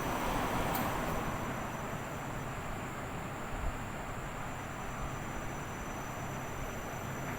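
Washing machine running: a steady low hum and whooshing noise, with two faint ticks about a second in.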